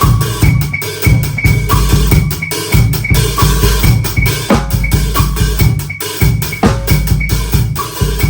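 Hybrid drum kit played in a steady beat: an old acoustic kit with kick drum hits, mixed with electronic drum sounds, including a high click that repeats about three times a second.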